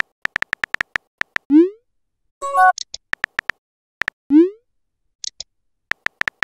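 Phone-keyboard tap sound effects in quick runs of clicks as a text message is typed, each run ending in a short rising pop as the message is sent. A short electronic chime sounds about two and a half seconds in.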